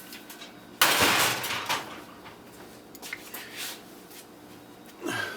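Ferrous steel parts from a dehumidifier thrown onto a scrap pile: a loud metallic crash about a second in that clatters for a moment, followed by a few lighter clinks.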